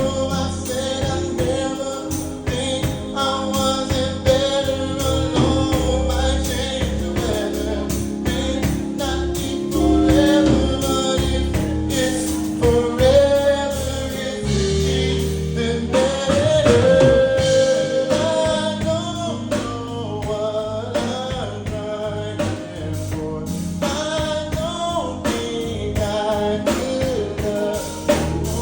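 A song sung live over music with a steady beat and sustained chords, the voice carrying a gliding melody.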